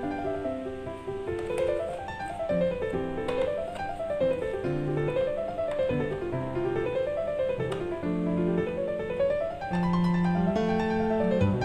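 Background music played on piano: notes running up and down in repeated arpeggios over a low bass line.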